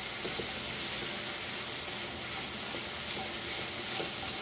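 Sliced onion rings sautéing in oil and masala in a non-stick frying pan: a steady high sizzle, with a few faint scrapes as a silicone spatula stirs and turns them.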